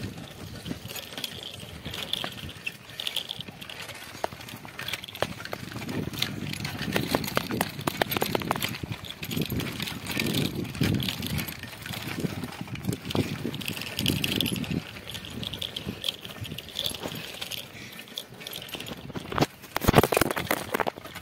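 Bicycle rattling and clinking as it rides over a rough, stony dirt track, with many small metallic clicks and a few loud knocks near the end.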